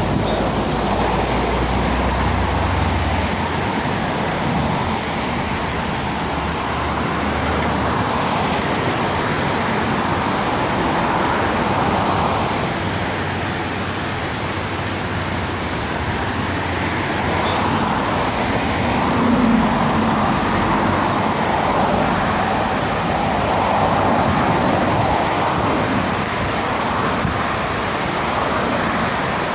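Steady noise of passing road traffic, swelling and fading every few seconds as vehicles go by.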